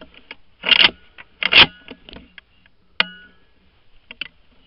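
Handling noise from an action camera being picked up and moved inside a hunting blind: two loud short rustling bumps, then a sharp click with a brief ring about three seconds in, and two lighter clicks near the end.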